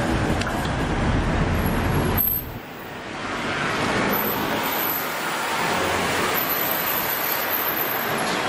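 Road traffic: a vehicle passing close with a low rumble that falls away suddenly about two seconds in, then a steady hiss of traffic.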